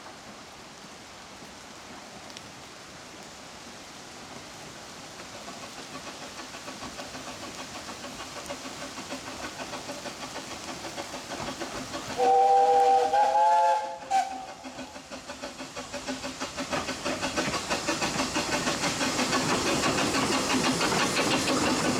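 Two narrow-gauge Corris Railway Falcon saddle tank steam locomotives working a double-headed train, their rhythmic exhaust beats growing louder as they approach. About twelve seconds in, a steam whistle sounds for about two seconds with a brief break.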